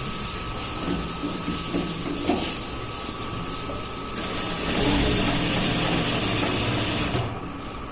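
Sewing machine running, stitching a shirt cuff: a steady motor hum with a faint whine, louder for a couple of seconds in the second half, then dropping shortly before the end.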